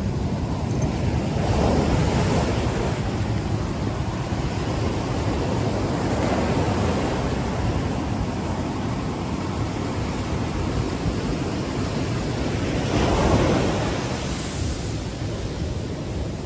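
Ocean surf breaking on a sandy beach: a steady wash of waves, swelling louder about two seconds in and again near the end.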